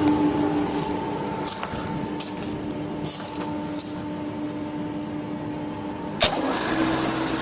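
Steady mechanical hum of a running Daikin chiller, with two held tones under it. A few light clicks and rattles come in the first few seconds, and a sharp click near the end, after which the hum turns rougher and a little louder.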